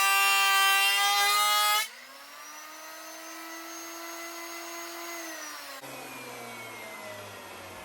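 Delta 12-inch lunchbox planer's motor giving a loud, steady whine that drops away sharply about two seconds in. A quieter whine follows that rises slightly, holds, then sinks in pitch, and near the end another whine slowly falls, as the motor winds down.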